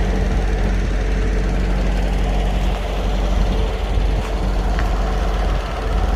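Heavy diesel semi-truck engine idling steadily, a continuous low drone.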